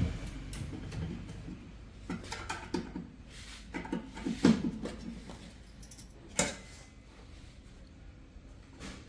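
Scattered clicks, knocks and light scrapes of parts being handled and fitted back into a microwave oven during repair, the loudest knock about four and a half seconds in.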